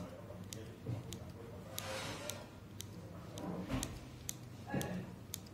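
Scissors cutting under the crust of a panettone: faint, scattered snipping clicks, roughly one a second, with soft handling of the dough.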